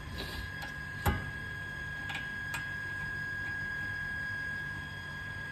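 A few sharp metal clicks from a spanner on the rear brake caliper bolts. The loudest click comes about a second in and two fainter ones follow, over a steady high-pitched tone.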